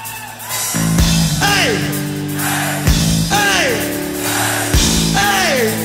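Rock-style background music starts up loudly about a second in. It has held notes, a deep beat about every two seconds, and a sliding note that falls in pitch with each beat.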